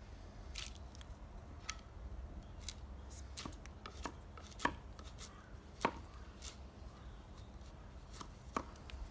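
Axe splitting firewood: a string of sharp wooden knocks and cracks at an uneven pace, a few of them louder strikes.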